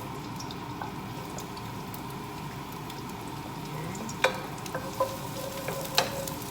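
Garlic sizzling in about a tablespoon of hot oil in a frying pan, being stirred, with three sharp clicks in the second half.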